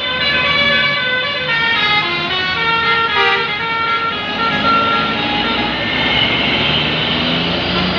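A tour bus's multi-tone "telolet" musical horn plays a quick stepping tune. About four seconds in, it gives way to the bus's engine and tyre noise swelling as the bus passes close.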